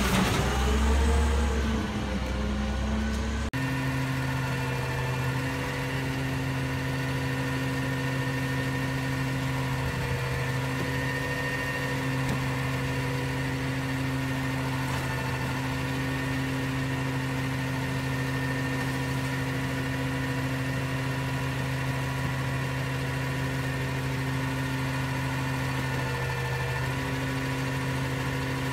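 Refuse truck engine idling steadily, a constant even hum. For the first few seconds it is louder, with the pitch rising and falling, before it cuts abruptly to the steady idle.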